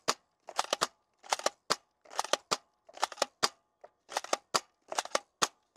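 Manual pull-back toy gun being cocked and fired over and over, a quick cluster of sharp plastic clicks and snaps about every second, seven or eight times in a row.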